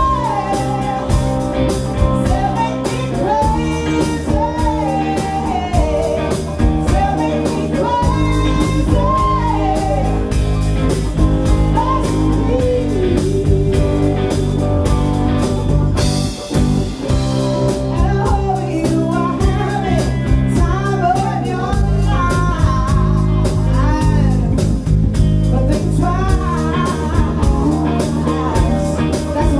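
Live blues band playing, a woman singing over electric guitars, bass and drums. The band stops for a moment about halfway through, then comes back in.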